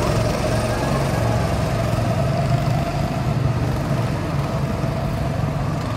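Several go-kart engines running together as the karts lap the track, a steady drone.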